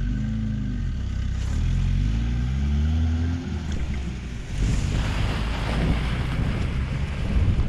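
A low engine-like hum whose pitch wavers for the first three and a half seconds, then strong wind buffeting the microphone with a heavy rumble.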